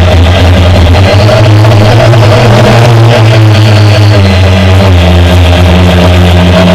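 Homemade quadcopter's motors and propellers buzzing loudly as heard through the action camera mounted on the drone. The pitch steps to a new level about four seconds in.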